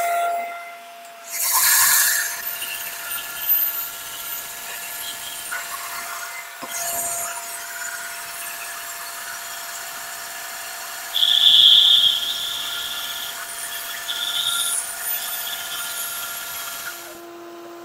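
Benchtop bandsaw on a freshly changed blade, running really loud and cutting a rough board, with a shop vac running alongside. The cutting noise swells in bursts, loudest a little past the middle.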